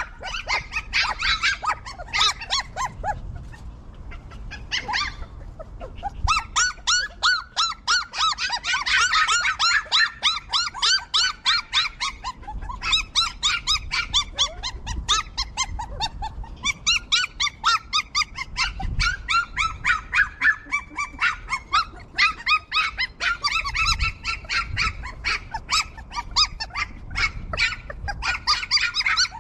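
Puppies squeaking and yelping, with short high-pitched cries coming rapidly, several a second, with a few brief lulls.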